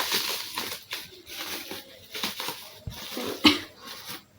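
A parcel's packaging being torn open and crinkled by hand: irregular rustling and ripping, with a sharper rip about three and a half seconds in.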